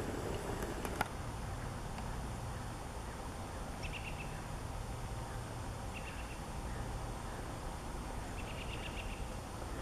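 Three short runs of quick, high chirps from a bird, about two seconds apart, over a steady low background rumble, with a single click about a second in.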